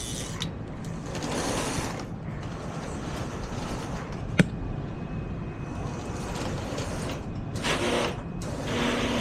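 Lionel postwar 2321 Trainmaster O-gauge diesel running on the layout, its two motors and trucks whirring steadily as it rolls along the track, with one sharp click about four seconds in. This is a test run after a motor truck that had come loose was screwed back on, and it runs well.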